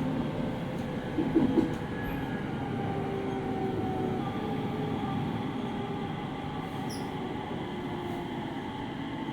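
JR East 701 series 5500-subseries electric train heard from inside the passenger car: steady rail and running noise with a faint electric motor whine that slowly slides down in pitch. A short knock sounds about a second and a half in.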